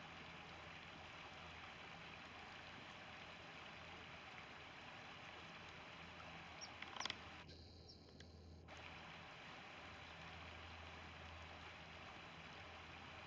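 Faint, steady rush of a shallow river flowing over gravel. A brief cluster of high chirps and clicks comes about seven seconds in.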